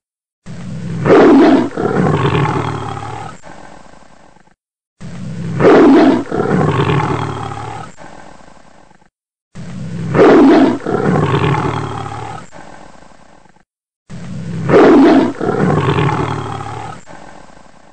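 A big cat's roar, the same recording looped four times about every four and a half seconds. Each roar is loudest in its first second and then trails off into fading growls.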